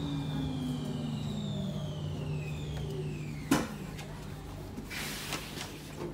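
Metro train's traction motors whining down in pitch as the train brakes to a stop over a steady low hum. A sharp clunk about three and a half seconds in is the loudest sound, followed by a short hiss and a few clicks near the end.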